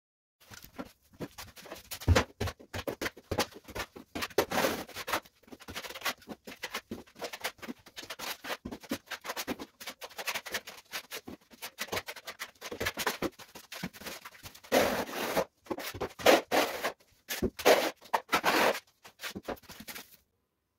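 Irregular scraping and scratching strokes on a hard surface, coming in uneven runs and pausing briefly now and then, with louder passages near the middle and towards the end.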